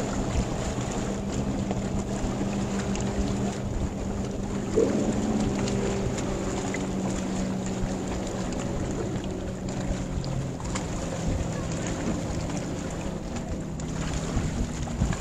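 Wind buffeting the microphone on open water, with a steady low engine hum underneath that fades out over the last few seconds.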